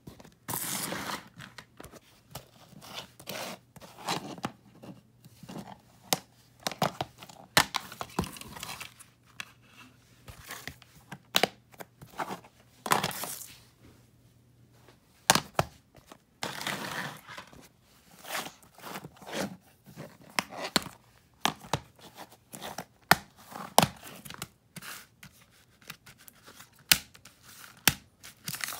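Plastic DVD cases being handled and opened: frequent sharp clicks and snaps, with short stretches of rustling and sliding of the cases and their paper inserts.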